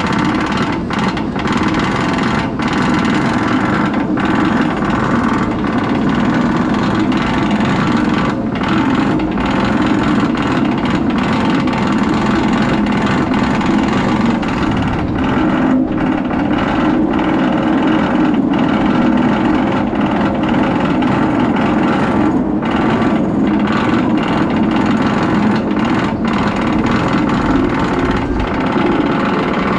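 Lift-hill chain of a B&M inverted roller coaster pulling the train up the lift: a steady, loud mechanical rattle.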